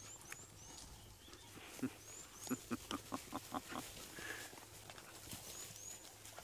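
African wild dogs giving a quick run of about eight short, faint woofing calls about two seconds in. Thin high chirps repeat faintly throughout.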